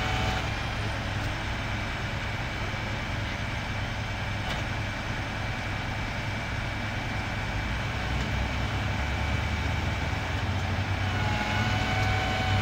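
Crane truck's engine running steadily, with a thin high whine from the crane's hydraulics. About a second before the end the whine grows louder and gains several tones as the crane works.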